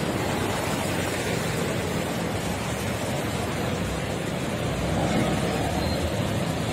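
Muddy floodwater rushing and churning down a flooded street, a steady noise of fast-moving water.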